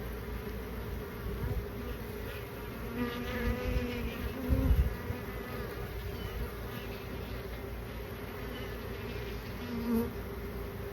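Honeybees buzzing in a steady drone, with single bees flying close past, louder around the middle and briefly near the end. A few low thumps come about four to five seconds in.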